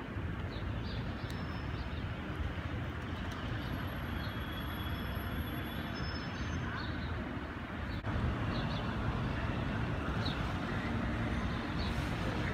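Outdoor city background: a steady hum of street traffic with indistinct voices of passers-by. It gets a little louder about eight seconds in.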